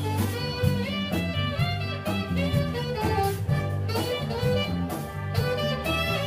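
Big band swing music, with saxophones and brass playing over a steady low bass line.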